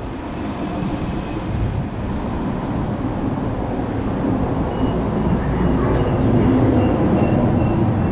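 Low, steady rumble of a heavy motor vehicle passing on the road, growing louder and peaking near the end. A faint, repeated high beep sounds in the second half.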